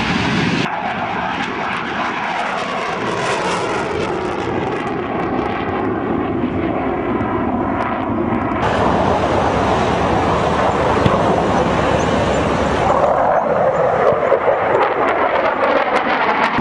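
Jet engine noise of a HAL Tejas single-engine fighter in flight: a steady rushing noise that changes abruptly about a second in and again about halfway, a little louder in the second half.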